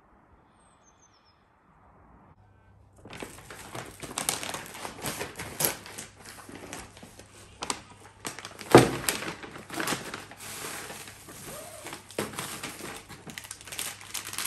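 Faint birdsong at first, then from about three seconds in a plastic bag crinkling and rustling as it is handled and unpacked on a wooden table, with one louder thump about nine seconds in.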